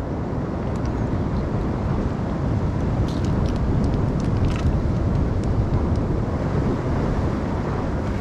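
Steady rushing of wind and sea swell washing against rocks, heaviest in the low rumble, with a few faint clicks around the middle.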